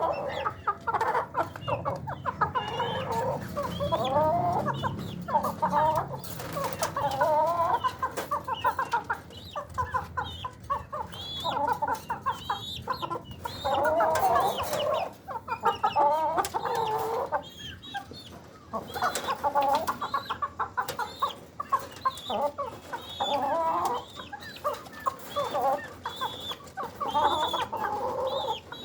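Chickens, an Aseel and a desi bird, clucking and squawking in short wavering calls that follow one another almost without pause, with scattered sharp clicks among them.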